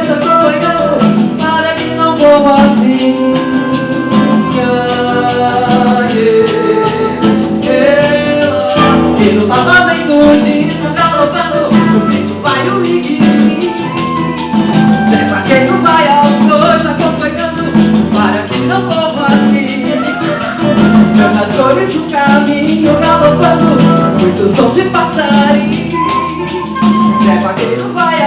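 An acoustic quartet playing a Brazilian song: plucked guitar and a shaker keeping a steady beat, with singing.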